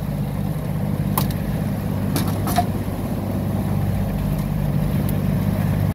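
Fishing boat's engine running steadily under way, with the rush of water along the hull. A few short sharp knocks come about a second in and again past the two-second mark.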